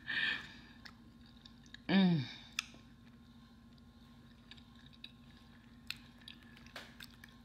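Close-miked chewing of a mouthful of soft food, with small wet mouth clicks. About two seconds in comes a short voiced 'mm' that falls in pitch, a sound of enjoyment. Later there are a few light clicks of a fork on the plate.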